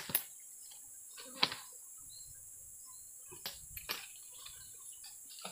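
Steady high-pitched buzzing of insects, with a few short knocks and rustles of people moving through the undergrowth, the loudest about a second and a half in.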